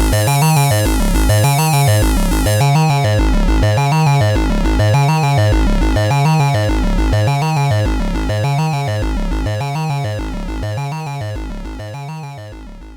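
Ad-vantage 03m monophonic analog synthesizer playing a repeating bass pattern, about one pulse a second, with bright upper tones. It fades out near the end.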